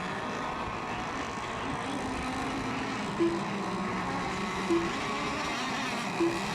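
Engines of several RC racing boats running together out on the water, a steady overlapping buzz whose pitches waver as the boats circle. Three short beeps about a second and a half apart sound over it.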